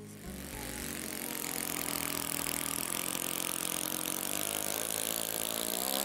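Small combustion engine of a radio-controlled model seaplane running steadily at low throttle as the model taxis on the water, its pitch rising near the end as the throttle is opened.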